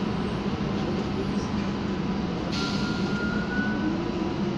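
Inside a MAN Lion's Classic city bus under way: the MAN E2876 CNG engine and road noise make a steady drone. About halfway in, a sharp burst of hissing air starts and lasts about a second and a half, and near the end a low whine slowly rises.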